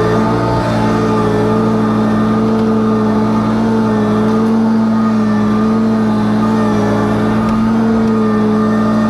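Small gasoline engine of lawn equipment running steadily at working speed, its pitch wavering slightly.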